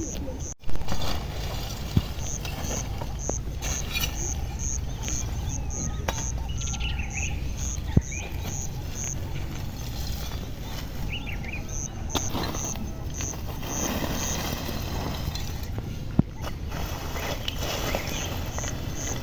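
Outdoor rural ambience: a bird or insect repeats a short high chirp about twice a second, pausing once midway, among other bird calls. A loud bump comes just after the start, and a few sharp knocks follow.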